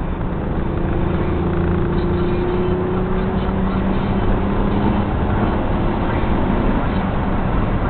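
1996 Nissan Maxima's 3.0-litre V6 revved up and held at raised speed, its pitch rising gently, then easing. The engine is logging a cylinder 5 misfire (P0305) that new coils and spark plugs have not cured.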